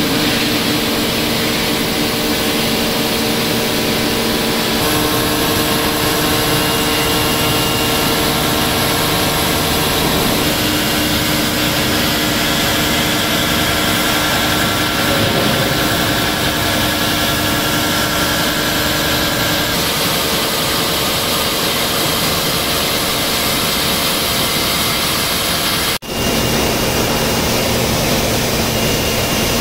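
Gantry milling machine's spindle running and milling a large welded steel machine bed: a loud, steady machining noise with several steady tones that shift a few times. The sound drops out for an instant near the end.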